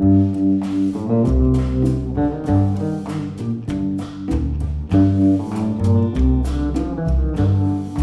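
Instrumental background music: a lively run of quick notes over a low bass line.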